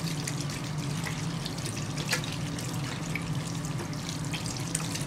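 Water running from a sink tap over soapy hands and into a ceramic washbasin as the hands are rinsed, a steady splashing flow with small drips and splashes throughout.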